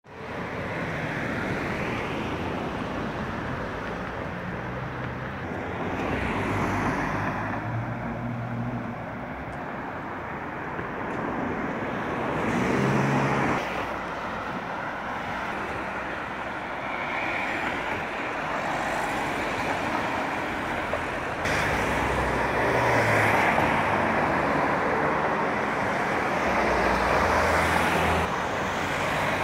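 Road traffic on a wet city street: cars passing one after another over a steady traffic background, swelling and fading several times.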